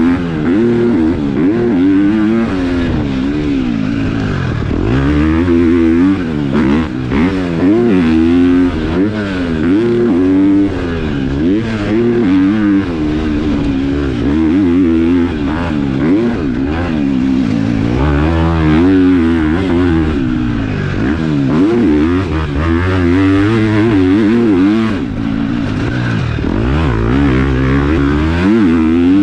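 KTM four-stroke motocross bike with a new exhaust being ridden hard on a track, the engine revving up and dropping back over and over as the rider works the throttle and gears, its pitch rising and falling every second or two.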